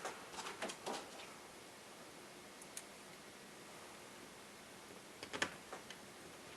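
Faint clicks and light taps from laptop parts being handled: a few in the first second, a single tick a little before 3 s, and another short cluster after 5 s.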